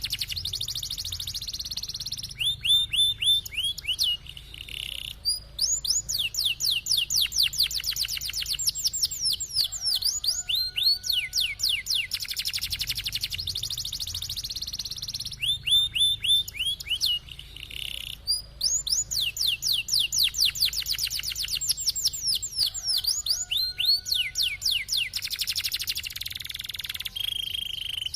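Domestic canary singing: long fast rolls of rapidly repeated downward-sweeping notes, alternating with short slower phrases and held notes. The same song sequence repeats about every 12 seconds.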